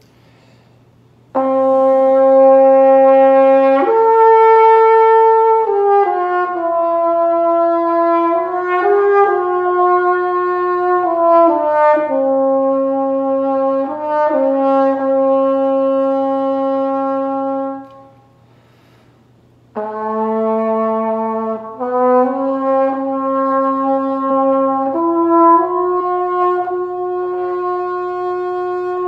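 Baby French horn playing a slow melody of held, connected notes in two phrases, with a short break a little past the middle; the second phrase ends on a long held note.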